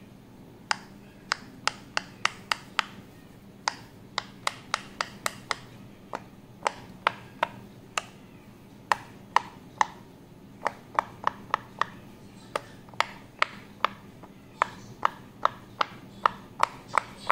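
Silicone pop-it fidget toy having its bubbles pressed through one at a time with a fingertip: a long run of sharp little pops, about two or three a second, broken by a few short pauses.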